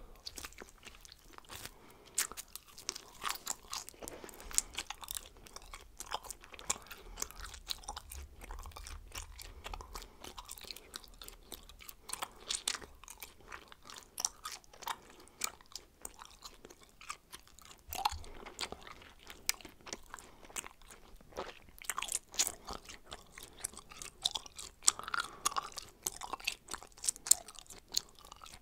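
A person chewing bubblegum close to the microphone: irregular wet smacks and clicks of the mouth and gum, several a second.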